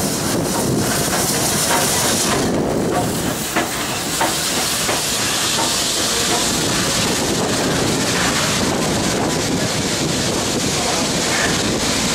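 Victorian Railways R class 4-6-4 steam locomotive R761 rolling slowly past with a steady hiss of steam, then its carriages going by with faint wheel clicks over the rail joints.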